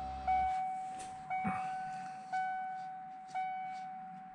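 Ford Explorer warning chime sounding a single electronic tone about once a second, each tone fading before the next, the kind of chime that rings with the door open. A brief low hum plays under the first half second, and one knock comes about a second and a half in.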